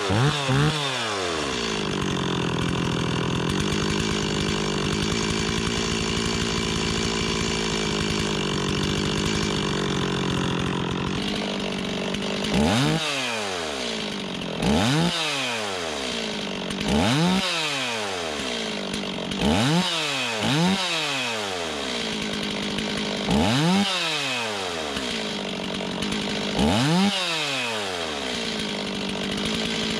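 Stihl MS260 Pro two-stroke chainsaw idling, with one quick rev at the very start, then blipped up to high revs and back to idle about every two seconds in the second half. Each time the trigger is pulled there is a slight hesitation before it revs up, on a new, not yet tuned carburetor that a listener thought was running lean.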